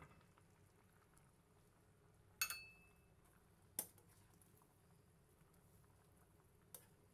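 Kitchenware clinking against a stainless steel cooking pot: a sharp metallic clink with a brief ring about two and a half seconds in, a second clink just over a second later, and a lighter one near the end, over quiet background.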